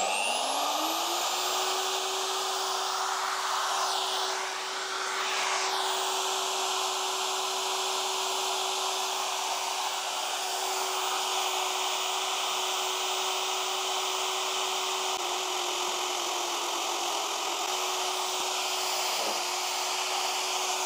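Vevor magnetic drill's motor spinning up with a rising whine over about the first second, then running steadily as its annular cutter bites at a steep angle into a round steel tube, where it cannot centre.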